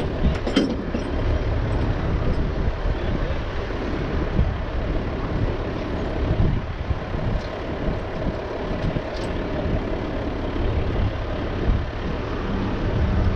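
A heavy engine idling steadily with a low rumble.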